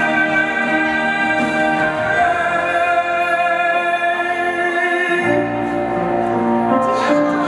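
A man singing into a handheld microphone over instrumental accompaniment, holding long sustained notes; lower accompaniment comes in about five seconds in.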